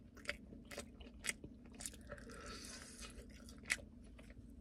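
Chewing a bite of chicken wing, with about half a dozen short, sharp clicks spread through it.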